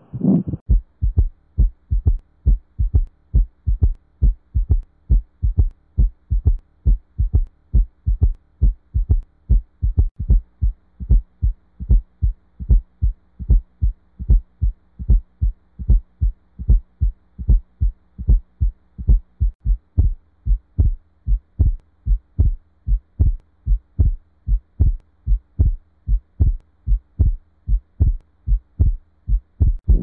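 Stethoscope recording of heart sounds: a regular run of short, low heartbeat thumps over a faint steady hum.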